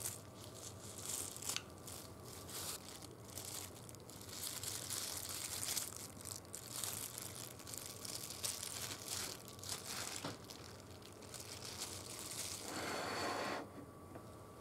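Thin polyethylene cooking bag crinkling and rustling as it is cut open with scissors and peeled off a soft omelette, in irregular crackles that die down near the end.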